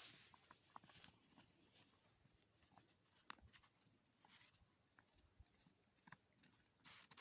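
Very faint scattered crackles and ticks of snow creaking, with a louder hissy crunching starting near the end.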